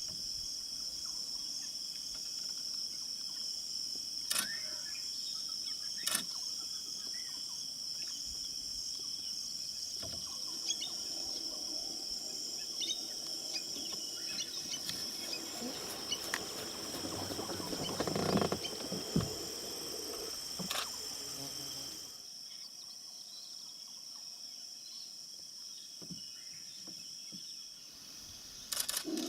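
Steady high-pitched insect buzzing, with scattered clicks and a louder, lower sound around 18 seconds in.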